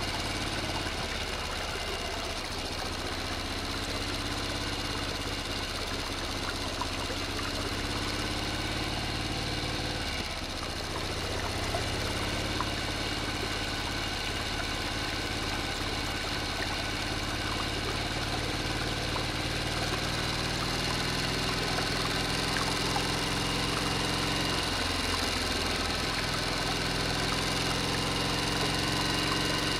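Small DC electric motor running steadily, driving a miniature water pump by belt, a continuous hum with water pouring from the pump's spout into a small tank. The hum breaks briefly about ten seconds in and then carries on.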